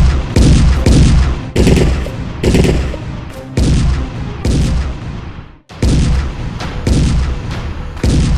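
A rapid series of about ten loud, heavy blasts, one every half second to a second, each dying away with a falling tail.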